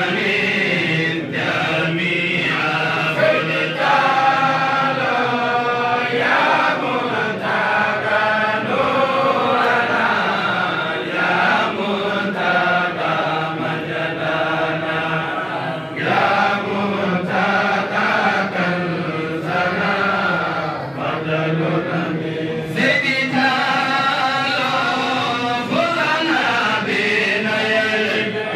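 A group of men chanting together without a break, a devotional Islamic chant with a rising and falling melody.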